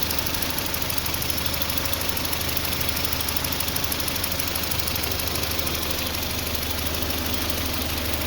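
1995 Toyota Tercel's 1.5-litre four-cylinder engine idling steadily with a freshly replaced PCV valve, running well.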